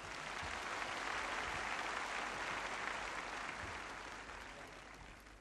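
A very large crowd applauding at the end of a speech. The applause swells over the first second or so, holds, then slowly dies away toward the end.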